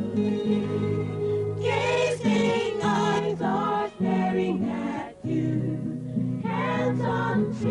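A choir singing a gospel song over sustained low accompanying notes, in short phrases with brief breaks.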